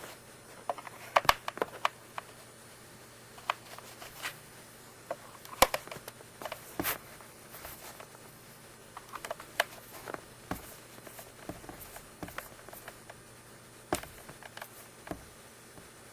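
Scattered light clicks and taps of small plastic parts being handled while a water flosser is taken apart. The sharpest clicks come in a cluster about a second in and once more about halfway through.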